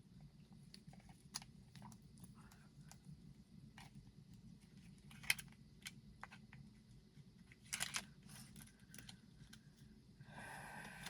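Scattered small clicks and rustles of small cardboard and plastic cosmetic packaging being handled and opened, the sharpest click about five seconds in and a quick cluster about eight seconds in, over a faint steady low hum.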